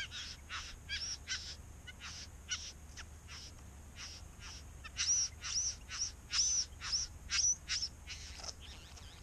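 Male satin bowerbird's courtship display song: a steady run of short buzzing calls, two or three a second, which turns about five seconds in into louder rising-and-falling notes for about three seconds before fading. The song is aimed at a female at his bower.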